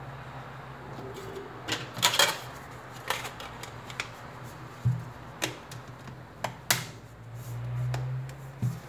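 Xiaomi Redmi 5 Plus being handled and put back together: a string of short, sharp plastic clicks and taps, irregularly spaced. Underneath is a low steady hum that grows louder near the end.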